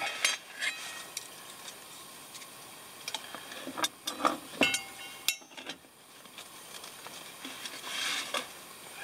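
A run of small clicks and light metal knocks as a SOTO ST-301 camping gas stove and its canister are handled, busiest in the middle with a brief metallic ring, then a soft rustle near the end.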